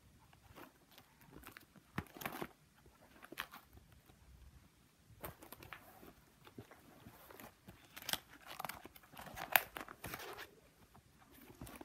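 Plastic sleeve pages of a trading card binder rustling and crinkling as they are handled and turned, in irregular rustles with sharp crackles about two seconds in and again, loudest, near the end.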